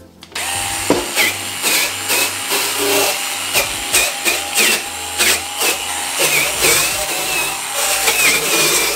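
Dremel VERSA cordless power scrubber spinning a nylon bristle brush against a plastic crate. The motor starts about a third of a second in and runs steadily, with a scrubbing rasp about every half second as the brush is worked over the plastic. Its whine dips in pitch briefly with each stroke as the brush is pressed on.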